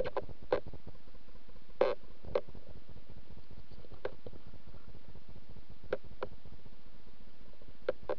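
Underwater ambience picked up by a camera on a speargun: a steady low rumble with scattered sharp clicks and ticks, about seven of them, the loudest about two seconds in.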